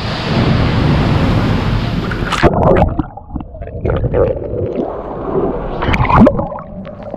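Sea water splashing and gurgling around a swimmer: a steady rushing noise for the first two and a half seconds, then quieter lapping broken by scattered small splashes.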